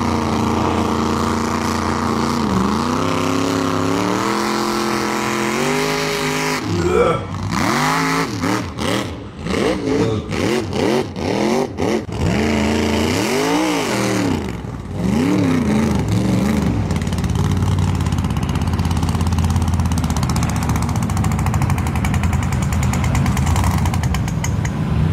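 Mud-bog truck engines revving hard as lifted pickups on paddle tires plough through a mud pit. Through the middle the revs rise and fall in a quick series of short bursts with brief drops between them. Near the end they settle into a steady high-revving run.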